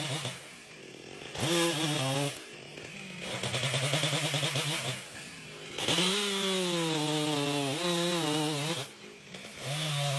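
Two-stroke chainsaw engine revving up and dropping back several times. The longest burst of high speed starts about six seconds in and lasts nearly three seconds.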